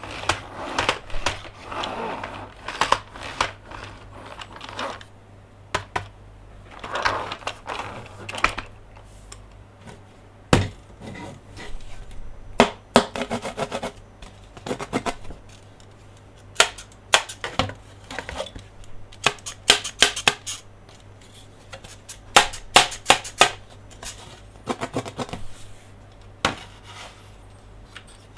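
Close-up handling of toy monster trucks and playset pieces: irregular sharp clicks and taps, with a few short stretches of rustling.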